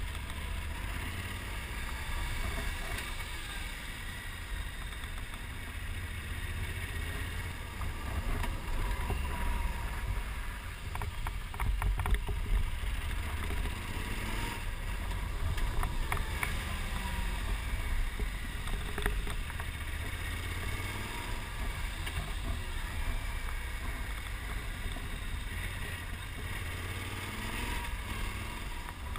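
Motorcycle riding under way, its engine note rising and falling, under heavy wind rumble on the bike-mounted camera's microphone.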